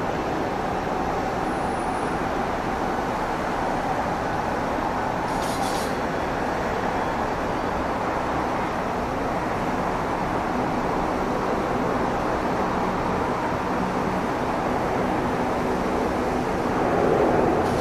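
Distant Pilatus PC-12's single Pratt & Whitney PT6A turboprop engine, a steady drone as the aircraft lands and rolls out, getting a little louder near the end.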